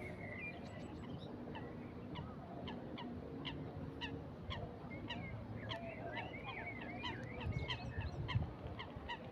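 Geese honking among small birds' quick repeated chirps and whistles, over steady wind noise that swells into a low rumble on the microphone near the end.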